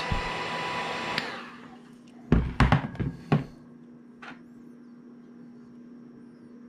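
Heat gun blowing hot air onto the earbud to soften its glue, a steady whoosh with a faint hum, switched off about a second and a half in and dying away. A few knocks follow about a second later, then a single click.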